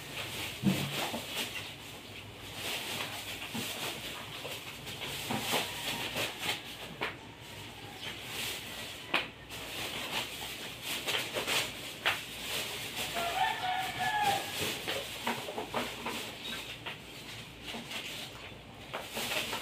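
Chickens clucking, with one short pitched call about thirteen seconds in, over scattered faint clicks and knocks.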